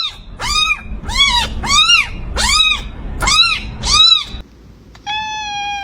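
Kitten meowing over and over, short rising-and-falling cries about two a second, then stopping; near the end a short steady tone sounds.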